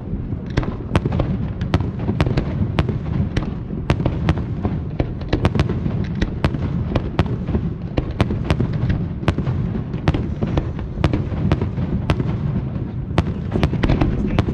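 Fireworks display: a rapid, dense barrage of sharp cracks and bangs, several a second, over a continuous low rumble of explosions.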